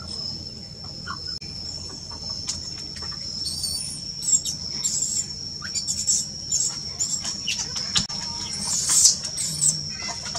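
Newborn macaque crying in a series of short, high-pitched squeaks, starting a few seconds in and loudest near the end.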